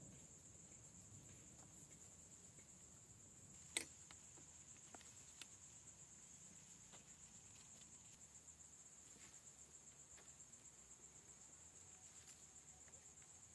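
Faint, steady high-pitched chirring of forest insects, with one sharp click about four seconds in and two faint ticks soon after.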